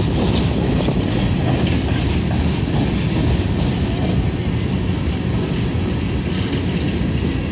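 Freight train of open-top hopper cars rolling past close by: a steady noise of steel wheels on the rails, with a few faint clicks.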